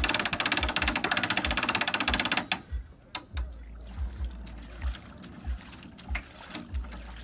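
Hand-cranked boat trailer winch being turned, its ratchet pawl giving a fast, even run of clicks that stops abruptly about two and a half seconds in. A few scattered clicks and knocks follow.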